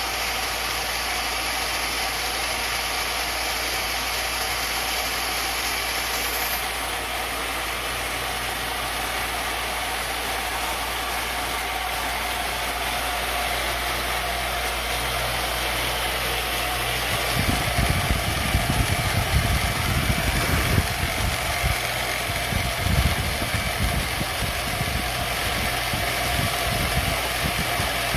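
Belt-driven spindle motor of a CNC-converted mini milling machine running steadily while its end mill cuts into a wooden board. From about two-thirds of the way in, irregular low rumbling and knocks join the steady running sound.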